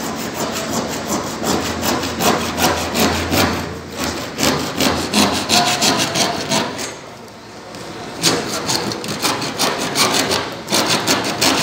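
Hacksaw cutting through a large PVC pipe, in steady back-and-forth strokes, with a short pause about seven seconds in before the sawing resumes.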